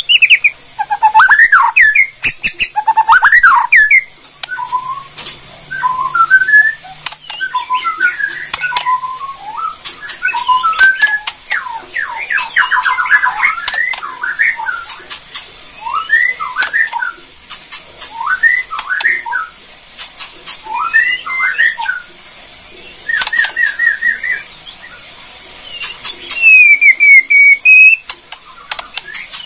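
A caged white-rumped shama of the Borneo race (murai batu Borneo) singing loudly without pause. Its song is a varied string of whistled phrases with swooping glides, quick trills and sharp dry clicking 'kretek' notes, and a dense rapid run of notes comes about twelve seconds in.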